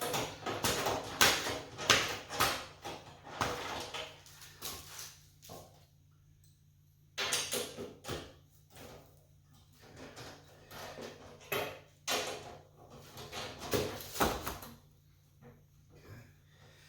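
Irregular clinks, clicks and rattles of hand tools and metal parts being handled, with a short pause about six seconds in, while an 8 mm wrench is used on the generator's battery cover plate.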